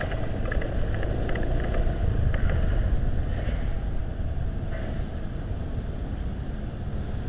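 Motorcycle riding through city traffic: steady low engine and road noise with no sudden events.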